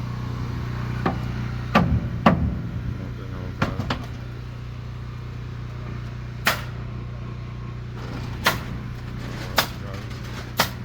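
About nine sharp knocks and cracks at irregular intervals from work on a timber house frame, over a steady low hum.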